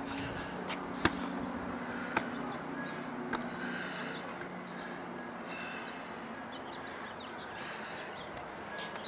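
Two sharp clicks, about one and two seconds in, with a softer one after, over a steady low hum that fades out a few seconds in.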